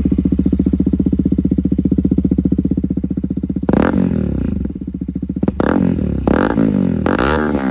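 KTM RC 200's single-cylinder engine through an SC Project aftermarket exhaust, idling with a loud, even pulse, then revved in several short throttle blips from a little under four seconds in.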